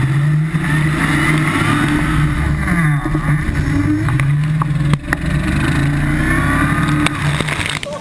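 Engine of a tubular-frame off-road buggy running loud and revving up and down repeatedly as it crawls along the trail, heard close up from on board. A few sharp knocks come about five and seven seconds in.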